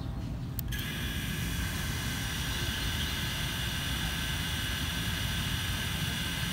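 FPV racing quadcopter's four brushless motors (Emax Eco II) armed on the ground: a click about half a second in, then a steady high electric whine at idle throttle over a low background rumble.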